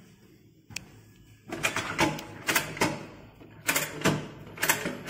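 Wooden tilting desktop of a kids' study desk being raised by hand. There is one sharp click just under a second in, then four bursts of rattling clatter.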